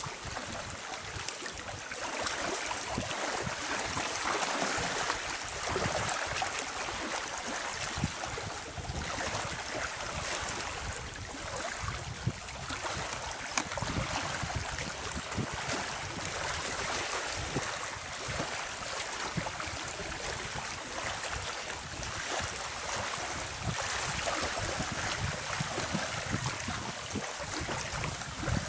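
Small lake waves lapping with wind: a steady wash of water noise, with small splashes and slaps now and then.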